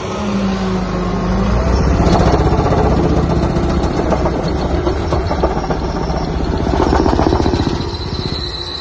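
Case 1107 single-drum soil compactor's diesel engine running as the machine drives on its repaired hydraulic pump and drive motor. A fast rattle comes in about two seconds in and gets louder, loudest near the middle and again near the end.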